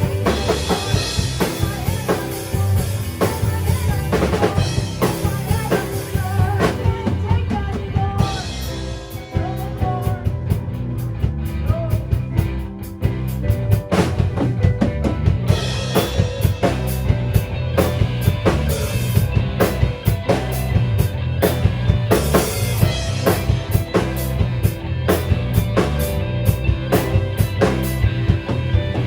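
Rock band playing live, with drum kit, bass, lead and rhythm guitars and keyboards, the drums keeping a regular beat.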